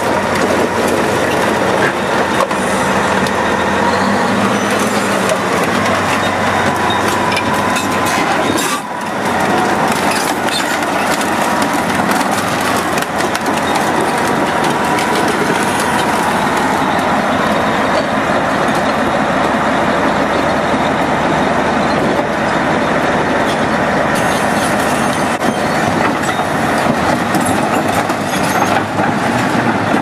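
Large crawler bulldozer running under load, its steel tracks clanking and squealing as it drives over and crushes a minivan, with a brief break about nine seconds in.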